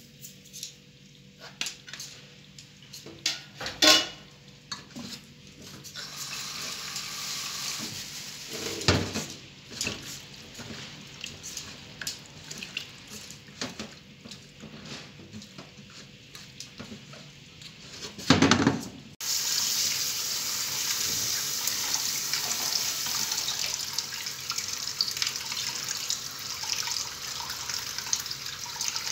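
Hands working raw chicken gizzards in a stainless steel bowl in a steel sink, with scattered clicks and a few sharp knocks of metal on metal. About nineteen seconds in, the kitchen tap comes on suddenly, and water runs steadily onto the gizzards in the bowl as they are rinsed.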